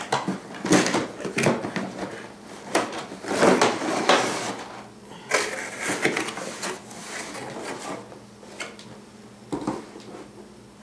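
Cardboard product box being opened and its packaging handled: scraping and rustling with a few knocks, busiest in the first half and then sparser.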